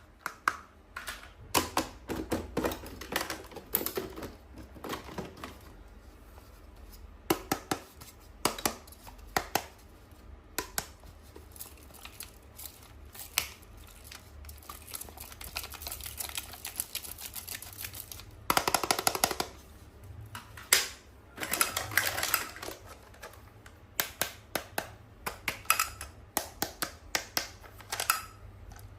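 Hands unboxing toys: irregular plastic clicks, taps and knocks of packaging and toy parts being handled, with a short stretch of rustling or crinkling about two-thirds of the way in.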